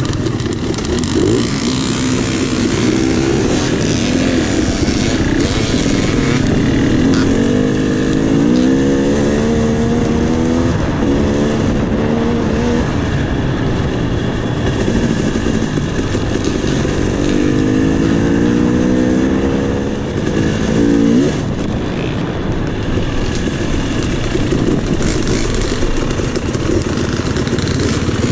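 KTM 300 XC two-stroke dirt bike engine being ridden, revving up and easing off again and again. The pitch climbs for longer stretches twice, about a third and two-thirds of the way through.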